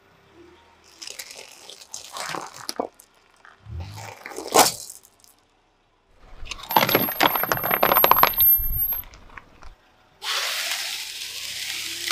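A car tyre crushes a ball covered in glass marbles: crackling, then a sharp crack about four and a half seconds in as it breaks. Then come about three seconds of glass marbles clinking and rattling as they scatter across asphalt. Near the end there is a hissing crunch as the tyre presses into a block of green foam.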